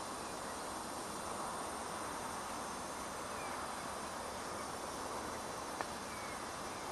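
Steady outdoor background hiss with a few faint chirps, likely birds, and a single sharp click near the end.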